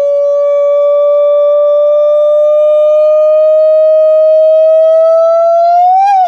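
A man's big, loud yell through cupped hands: one long held high note that creeps slowly upward in pitch, then lifts briefly and breaks off near the end.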